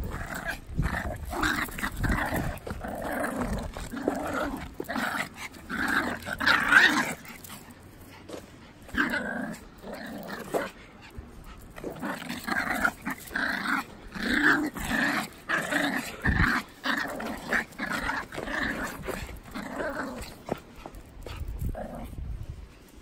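Pomeranians growling and grumbling at each other in short, repeated bouts.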